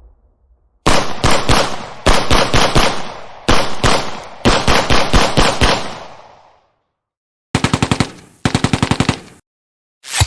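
Automatic gunfire sound effect: several rapid bursts of machine-gun fire with echoing tails, then after a pause two short, fast bursts that cut off sharply.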